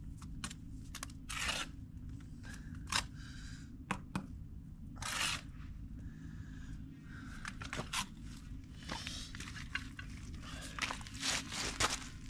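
Steel brick trowel scraping and cutting mortar on brickwork, with occasional sharp taps as bricks are bedded, at irregular intervals over a steady low rumble.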